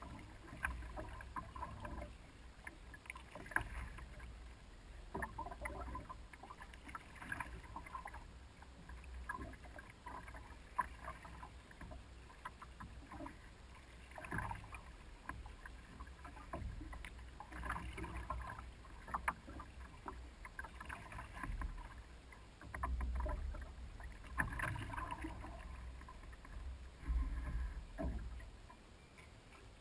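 Wooden canoe paddle stroking through calm lake water beside a big canoe: irregular dips, pulls and splashes with drips, every second or two, over a low rumble.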